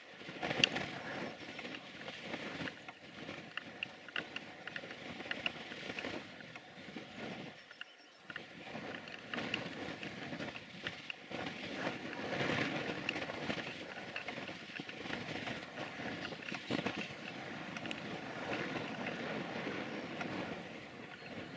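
Steam locomotive pulling a train away from a stand, its exhaust chuffing in repeated beats.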